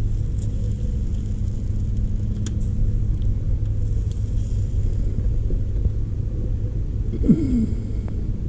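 A steady low rumble, with a few faint clicks and a short rising-and-falling pitched sound about seven seconds in.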